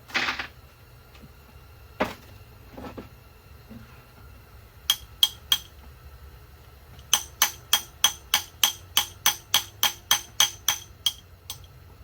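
Sharp metallic clicks, each with a short ring, from hand tools working on metal engine parts: a knock at the start and another about two seconds in, three clicks about five seconds in, then an even run of about three clicks a second for some four seconds.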